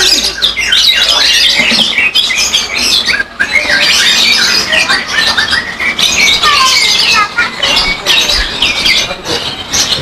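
Many caged songbirds singing and chirping at once. Their short calls and whistled glides overlap densely and never break off.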